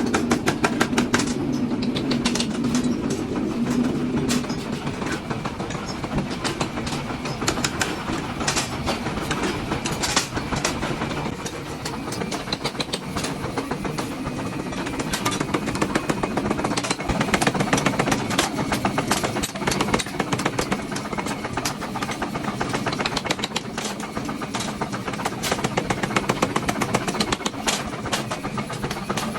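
Dense, rapid clatter of metal-on-metal strikes over a steady low machine hum, the sound of blacksmith forging work.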